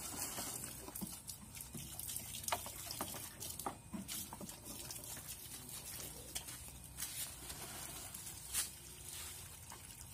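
Water splashing and dripping in a washbasin as a child's hands scoop and slosh it, with irregular small splashes and knocks; one splash near the end is a little louder.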